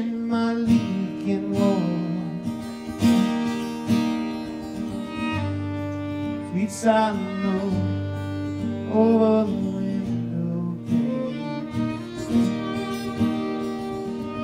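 Acoustic guitar strummed steadily with a fiddle bowing alongside, and a man singing at times.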